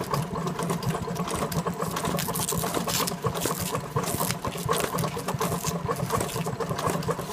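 Techsew HD industrial sewing machine running steadily, its motor humming under fast, regular needle strokes as it stitches through thick nylon webbing and Velcro strap.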